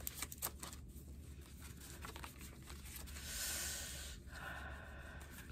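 Paper index cards rubbing and sliding against each other as one is pulled from a stack that is stuck together. There are a few light clicks at the start and a longer rustle about three seconds in, over a steady low room hum.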